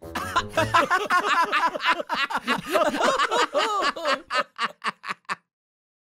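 Several cartoon voices laughing together. The laughter breaks into shorter and shorter chuckles that die away about five seconds in.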